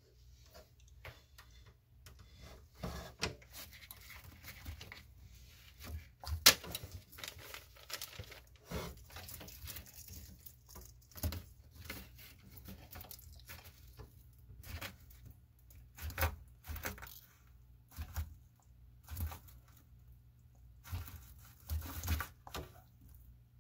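Bearded dragon biting and chewing a strip of mango held out by hand: short, irregular clicking and snapping bites, about one every second or so.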